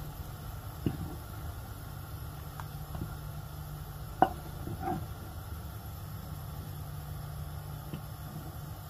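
A wooden spoon stirring milk and sago in a non-stick pan, giving a few faint knocks against the pan, the sharpest about four seconds in. A steady low hum runs underneath.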